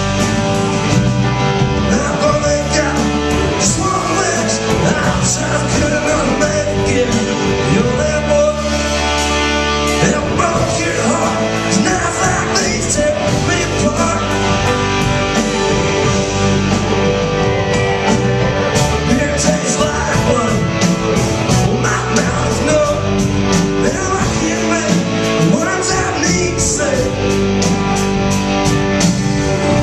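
Rock band playing live: electric guitars over bass and drums in a long instrumental stretch, with cymbals ticking steadily, busier in the second half.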